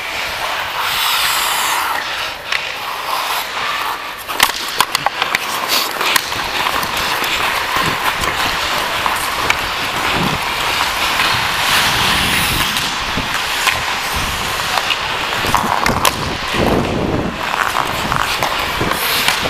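Ice hockey skate blades carving and scraping across the ice, with scattered sharp clicks and knocks of sticks and puck.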